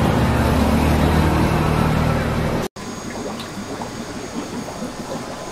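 Street traffic noise with a vehicle engine running, cut off abruptly about two and a half seconds in. Then a quieter indoor sound of water trickling in a goldfish aquarium.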